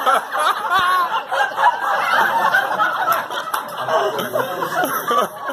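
Several people talking over one another and chuckling, a chatter of voices around a table.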